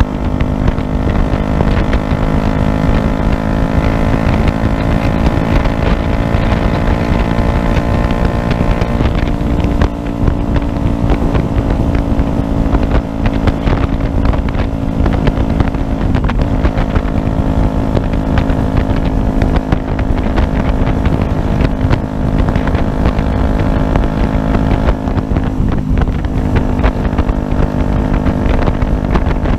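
Yamaha YZF-R125's 125 cc single-cylinder four-stroke engine running at steady cruising revs, with a brief small dip in revs about halfway through. Wind noise rushes over the microphone underneath.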